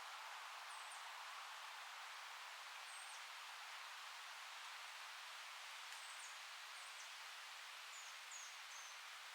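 Wind rustling tree leaves, a faint steady hiss, with short high bird chirps several times, clustered near the end.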